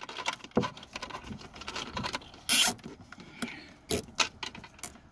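Handling noise of dash cam cable being worked into the car's A-pillar and plastic dash trim: scattered clicks, knocks and rustles, with a short sharp rasp about halfway through.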